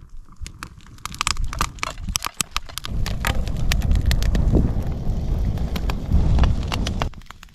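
Lumps of coconut oil being shaken from a glass jar into a steel frying pan set on a Swedish candle fire: a string of small clicks and taps, joined about three seconds in by a low rumble of wind on the microphone.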